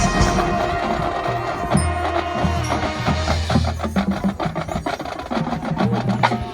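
A marching show band playing, with low brass and winds holding notes under percussion clicks and taps. A fast run of sharp taps comes about four to five seconds in.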